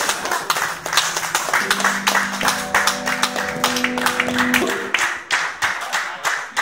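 Small audience clapping in applause, with a held chord from a musical instrument ringing out for about three seconds in the middle.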